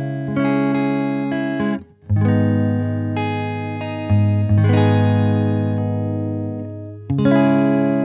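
Strat electric guitar with Radioshop ID:Evolution Mk.II single-coil pickups, played through an amplifier: chords struck and left to ring and fade, stopped short just before two seconds in, then new chords about two, four and seven seconds in.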